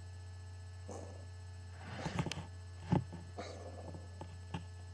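Steady low electrical hum, with a few soft clicks and rustles: a cluster about two seconds in and a sharper knock about three seconds in.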